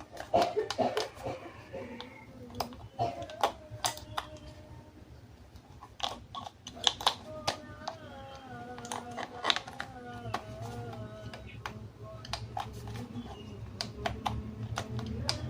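Plastic toys and packaging being handled, making irregular sharp clicks and clacks. A short wavering pitched sound is heard in the middle.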